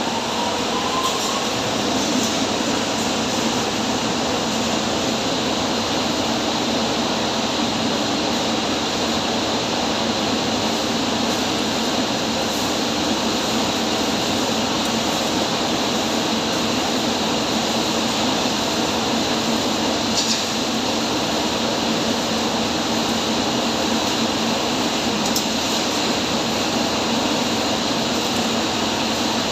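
Twin hammer mill running steadily: a loud, even mechanical rush with a steady hum underneath.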